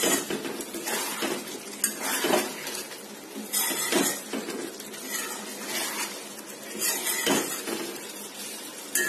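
Metal spoon stirring a thick potato and soybean curry in a metal kadhai, with irregular scrapes and clinks against the pan every second or two.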